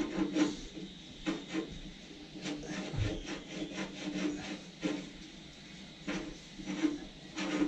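Irregular metal scraping and rubbing strokes as a threaded socket welded into the steel tank is worked clean of weld spatter. There is a dull knock about three seconds in.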